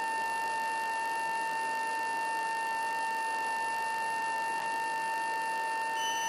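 Electromagnetic pickup-coil recording of a BYD D9RA electric bus's IGBT VVVF traction-and-auxiliary converter idling at standstill: a steady high whine with fainter higher tones, over a constant hiss of electrical interference.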